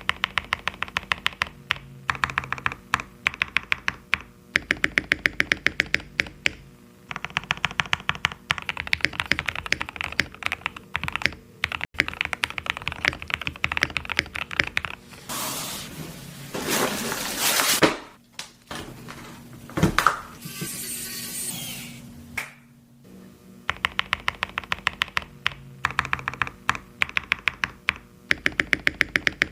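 Typing on a mechanical keyboard fitted with Gazzew Boba U4T tactile switches: rapid runs of keystrokes in bursts of a few seconds. Around the middle comes a few seconds of loud, even noise and a single sharp knock.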